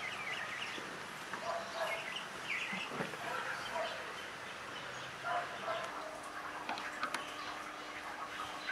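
Birds chirping in outdoor ambience, with a few short, sharp knocks and a faint steady hum in the second half.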